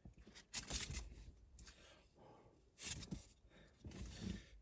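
Soft rustling and handling noises from a fast-food breakfast sandwich being handled, in short bursts about half a second in, around three seconds in and near the end.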